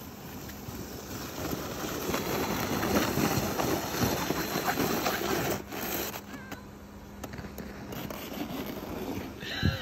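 A small plastic sled scraping and hissing over packed snow, growing louder as it slides closer and passes, then falling away about halfway through. Near the end there is a brief high-pitched vocal squeal.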